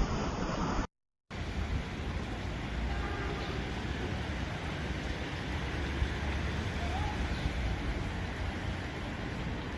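Hurricane-force wind blowing hard and buffeting the microphone, a steady rushing noise with a heavy low rumble. There is a short break about a second in, after which the wind goes on.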